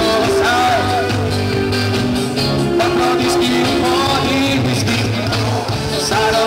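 Live rock band playing through the stage PA: electric guitars, bass and a drum kit, with a lead singer's voice over them.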